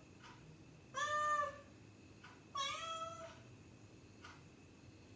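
A calico cat meowing twice, two short calls about a second and a half apart: a demand meow to be let out of the door.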